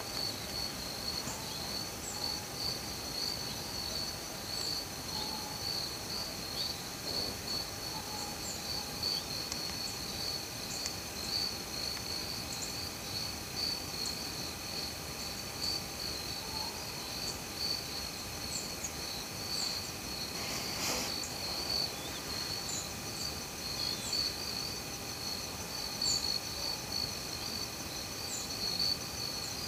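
A chorus of crickets and other insects trilling steadily, several high-pitched trills layered over one another, with a brief soft rustle about two-thirds of the way through.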